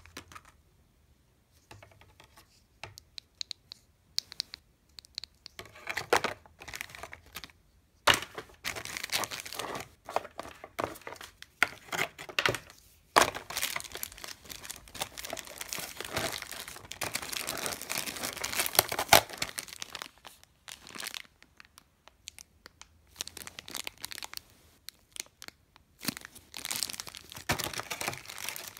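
Clear plastic packaging bags crinkling and rustling as they are handled and unpacked, in irregular bursts with sharper crackles, starting about two seconds in and densest through the middle and again near the end.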